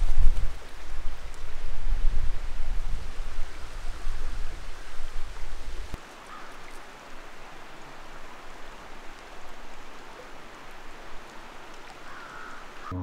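Steady rush of flowing stream water, with a low wind rumble on the microphone that cuts off suddenly about six seconds in.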